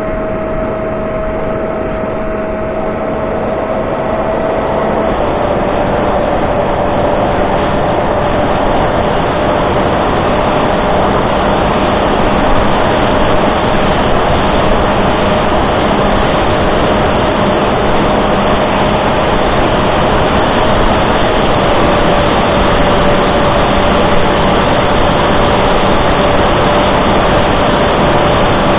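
Sonic Modell Reptile S800 flying wing in flight, heard from its onboard camera: the electric pusher motor and propeller give a steady whine over heavy wind rush. The whine drops slightly in pitch about five seconds in and again near the twenty-second mark.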